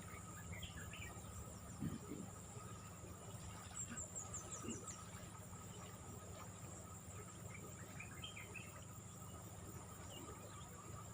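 Faint outdoor ambience: a steady high-pitched insect drone over a low steady rumble, with scattered short bird chirps and, about four seconds in, a quick run of five falling high notes.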